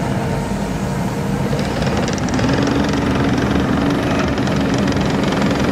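A heavy machine's engine running steadily, its hum rising a little in pitch about two seconds in and then holding.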